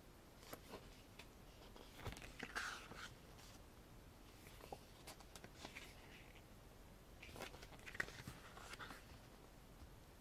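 Faint rustling and soft flicks of album photobook pages being turned by hand, coming in a few scattered clusters with one sharper click near the end.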